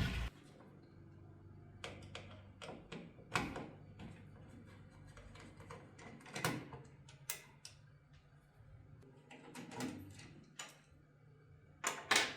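Irregular clicks, taps and light knocks of computer hardware being handled and fitted together, over a faint steady hum.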